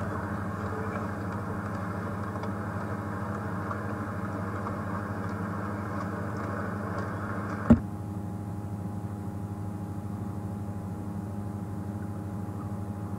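Open safari vehicle's engine running as it drives along a dirt track, a steady hum. A sharp click comes about eight seconds in, after which the hum is quieter and the rougher upper part of the noise drops away.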